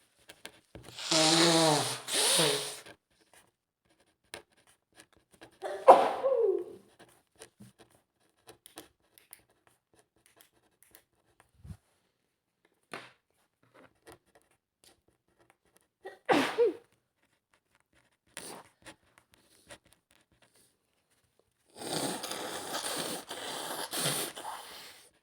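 A woman with a heavy cold sneezing: a double sneeze about a second in, the loudest sneeze around six seconds with a falling pitch, and another around sixteen seconds, with faint small clicks between. Near the end comes about three seconds of noisy nose-blowing into a tissue.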